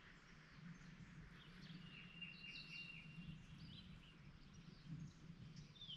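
Near silence with faint songbird calls: scattered high chirps and whistles, one high note held for about a second a couple of seconds in, and short falling whistles near the end.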